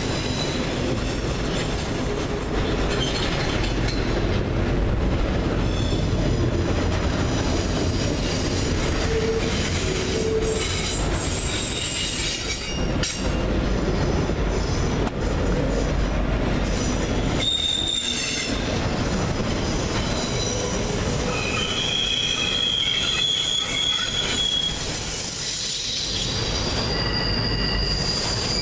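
Intermodal freight train cars rolling past on curved track: a steady rumble of wheels on rail, with high wheel squeals that come and go as the cars take the curve. The low rumble eases a little about two-thirds of the way through.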